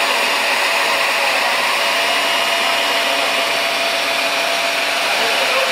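Water-fed diamond core drill running steadily while cutting reinforced concrete: a continuous motor whine over a rushing hiss.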